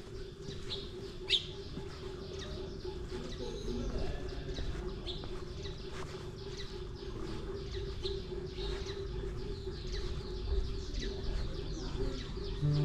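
Small birds chirping, many short high calls repeating throughout, over a steady low hum.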